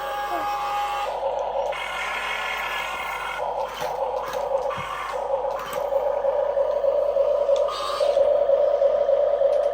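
Small electric motors and gearing of an RC model earth-moving machine whining steadily, the whine shifting every second or two as different motors start and stop.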